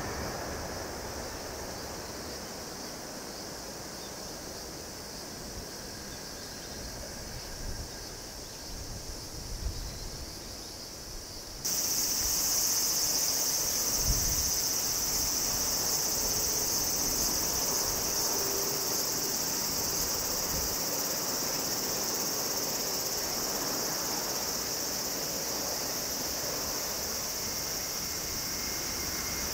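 A steady, high-pitched insect chorus that starts abruptly about a third of the way in. Before it there is the fading sound of a Shinkansen train that has just passed, then quiet outdoor ambience. Right at the end, the sound of an approaching Shinkansen, the 923 Doctor Yellow inspection train, begins to rise.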